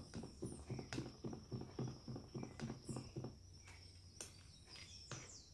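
Spoon stirring a thick glue slime mixture in a plastic cup, a soft rhythmic knocking about three times a second that fades out about three and a half seconds in.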